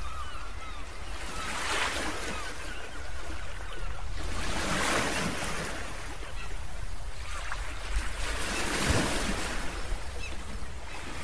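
Ocean surf breaking and washing in over a rocky shore, swelling in surges every three to four seconds.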